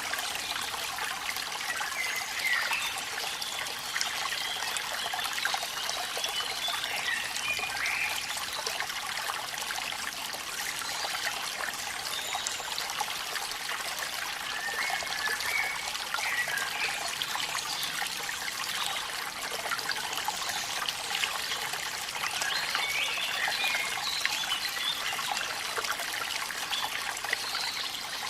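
Waterfall water trickling and splashing steadily, with rain.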